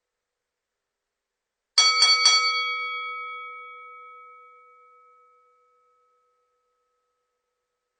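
Boxing ring bell struck three times in quick succession, about a quarter second apart, starting a little under two seconds in, then ringing out and fading over a few seconds.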